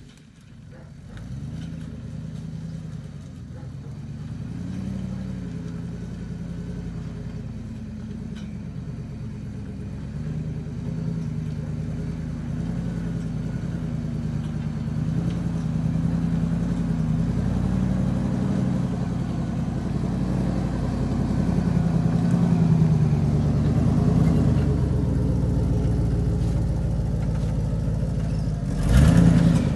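Jeep Grand Cherokee's engine running at low revs as it crawls over a wet, stony track, its pitch rising and falling gently with the throttle and growing louder as it comes closer. There is a brief louder rush near the end.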